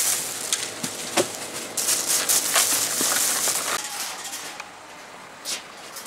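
Plastic bags of bread and food packages rustling as they are handled in a plastic crate, with a few light knocks; the rustling dies down after about four seconds.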